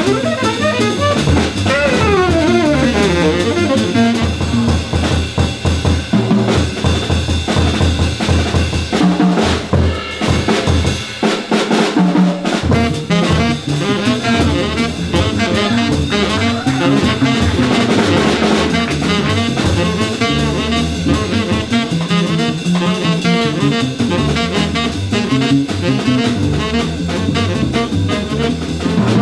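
Tenor saxophone playing a fast jazz line over a busy drum kit, live with a jazz trio.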